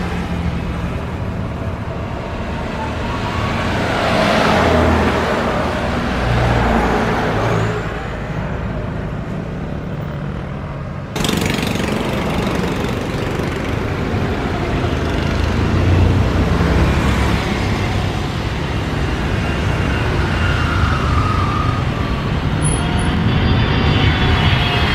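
Jet airliner engines running throughout. For the first eleven seconds it is a Boeing 737 rolling along the runway after landing. Then, after a sudden cut, a Boeing 777's twin engines are heard on final approach, with a whine that rises as it nears touchdown.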